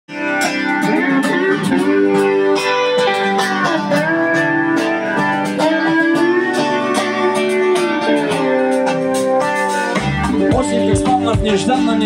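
Live rock band playing the instrumental intro of a song, a lead guitar line with bent, gliding notes over guitars and cymbals. The bass and kick drum come in about ten seconds in.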